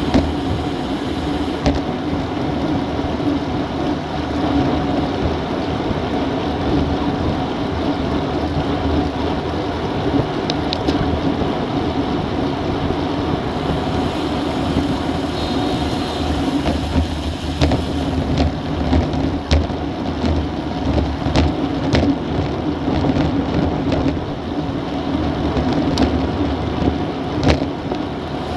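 Steady rush of wind over an action camera's microphone together with road-bike tyres rolling on asphalt at about 40 km/h, with scattered sharp ticks in the second half.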